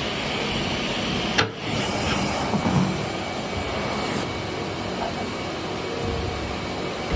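Vacuum running steadily, sucking leftover grain out of a harvest machine's bin. There is a sharp click with a brief dip about one and a half seconds in, and a few light knocks about a second later.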